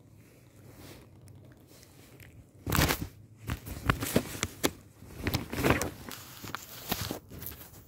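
Cat's fur brushing and rubbing directly over the microphone: scratchy crackling rubs that start about three seconds in, with a few sharp, loud scrapes among them.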